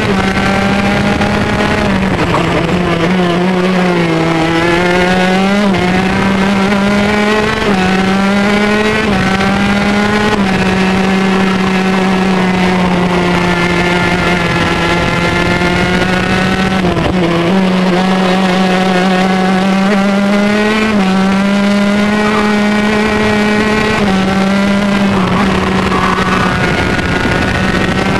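Two-stroke engine of a Honda junior gearbox kart running hard on track, heard onboard. Its note rises and falls as the driver accelerates, lifts and shifts, with sudden steps in pitch several times over the lap.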